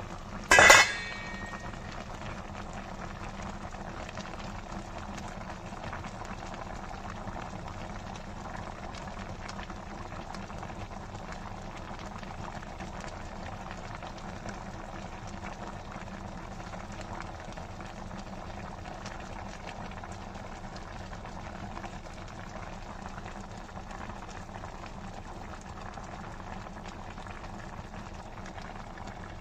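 Pot of fish, broccoli and green pepper broth bubbling steadily at a simmer in a stainless steel pot. About a second in comes a single sharp clink with a brief ring.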